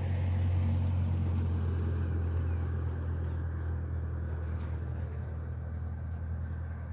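Diesel engine of a tracked excavator running steadily: a low, even rumble that eases off slightly over the seconds.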